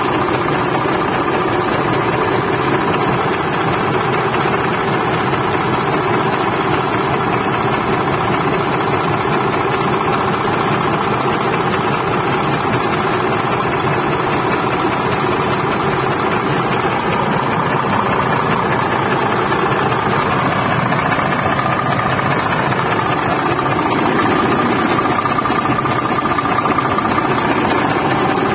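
Shacman tractor head's diesel engine idling steadily, heard up close in the engine bay.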